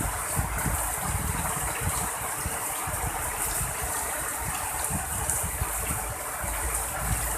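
Heavy rain falling steadily in a strong wind, with gusts rumbling on the microphone.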